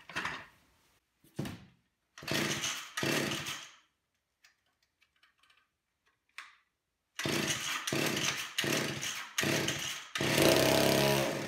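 Old McCulloch two-stroke chainsaw being pull-started on full choke: repeated rasping pulls of the recoil starter turning the engine over, a pause, more pulls, then near the end the engine sputters briefly without running.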